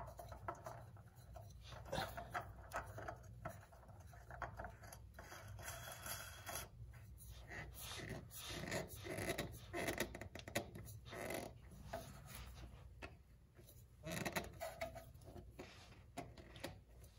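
Faint rubbing and scraping of hands turning a Roki oil filter on its threaded mount under the engine, with irregular light clicks and knocks as the canister and fingers touch the metal around it.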